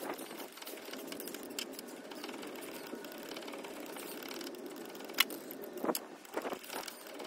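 Hand-tool work tightening a new alternator's mounting bolts: a low steady rustle with a few sharp metallic clicks and clinks, the sharpest about five seconds in and several more just after.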